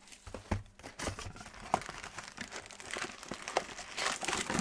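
Trading card pack wrapper being torn open and crinkled by hand, with short crackles and clicks, loudest about four seconds in.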